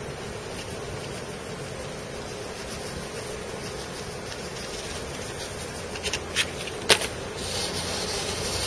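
Powdered hot cocoa mix pouring from a torn paper packet onto a 3D-printed shell as a steady soft hiss. A few sharp crinkles of the packet come about six to seven seconds in. Near the end a louder scratchy rubbing starts as a hand presses and rubs across the powder-covered surface.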